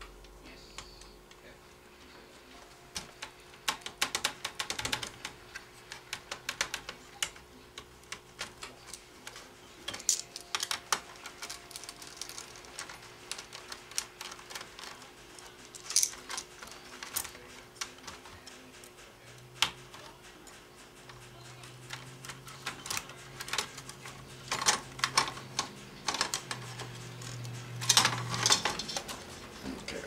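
Irregular clicks and taps of plastic laptop casing parts and a small screwdriver being handled while the laptop is taken apart, with several clusters of quick sharp clicks. A faint low hum comes in during the second half.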